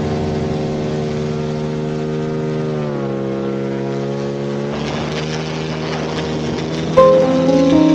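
DLE170 twin-cylinder two-stroke engine of a paramotor running steadily with its propeller, its pitch dropping about three seconds in as it is throttled back. A louder, different sound comes in near the end.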